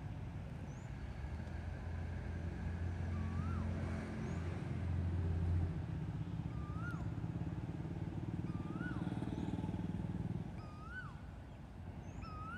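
Low engine rumble that swells midway and cuts off near the end. Over it, a bird repeats a short rising-and-falling call about once a second.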